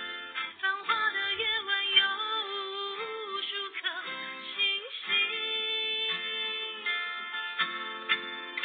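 A woman singing over a guitar backing track.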